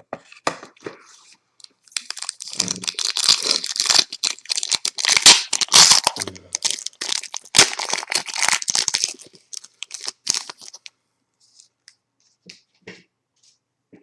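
Trading card pack wrapper being torn open and crinkled: a dense crackling for about eight seconds, then a few faint clicks and taps near the end.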